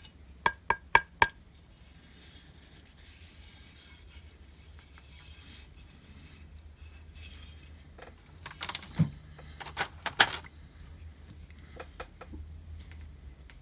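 Metal and plastic model-kit parts handled by hand. About half a second in come four quick taps, one with a brief metallic ring, then faint rubbing, and a cluster of clicks and knocks around eight to ten seconds in.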